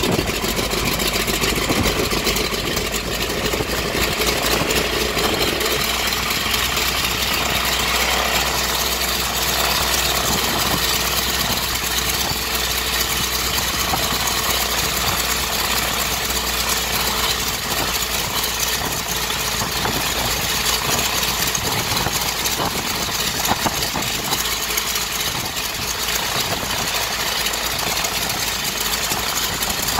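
Wright Whirlwind R-760-8 seven-cylinder radial engine of a 1929 Taperwing WACO biplane running steadily at idle, having just started. Its rapid, even firing carries on without a break.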